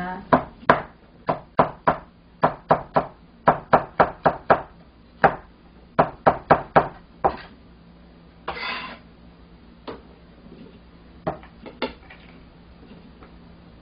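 Kitchen knife chopping a green bell pepper into small dice on a cutting board: a run of sharp knocks, two or three a second, for about seven seconds. Then a short scrape and a few single knocks as the pieces are gathered off the board.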